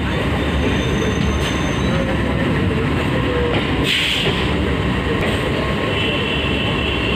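Train running along the track, heard at an open doorway: a steady loud rumble of wheels on rails, with a brief hiss about four seconds in.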